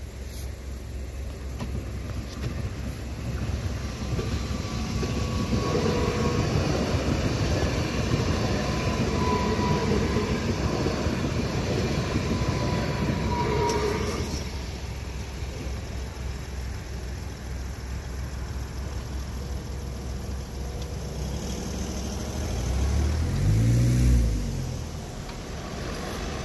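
A Stadler FLIRT electric multiple unit passing over the level crossing: its running and wheel noise builds from a couple of seconds in, holds for about ten seconds with a faint steady whine, and fades out a little past halfway. Near the end a car drives past close by.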